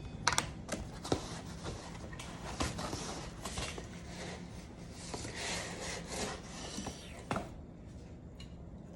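Packaging and parts being handled while unboxing: rustling and rubbing with many sharp clicks and knocks, stopping about seven and a half seconds in.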